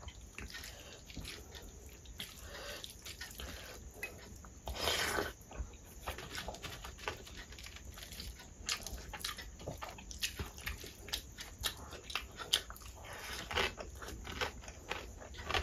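Close-miked chewing and crunching of rice with crispy fried potato sticks (aloo jhuri), mixed in with the wet squish of fingers working rice on a steel plate. There are many short crackly clicks, and one louder crunch about five seconds in.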